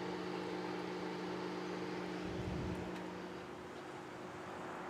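Steady mechanical hum with a low drone; about two and a half seconds in, its lower tone drops out after a brief low rumble and the hum gets slightly quieter.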